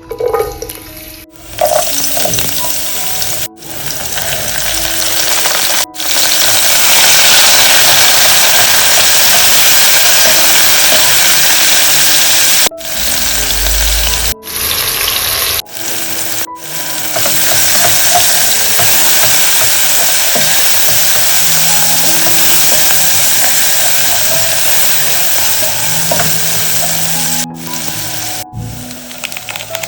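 Food sizzling in hot oil in a pan, in several clips separated by abrupt cuts. Quiet background music plays underneath.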